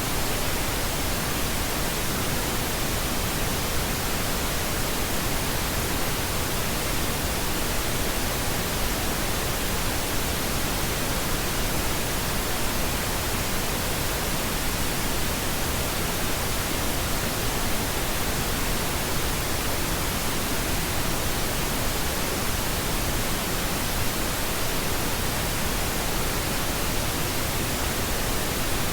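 Steady pink noise: an even, unchanging hiss spread across all pitches, with its weight toward the low end.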